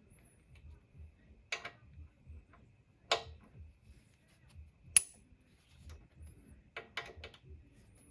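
Sharp metallic clicks and clinks from a torque wrench and socket being worked on motorcycle front-axle pinch bolts set to 19 foot-pounds. The loudest, sharpest click comes about five seconds in, with a quick run of three clicks near the end.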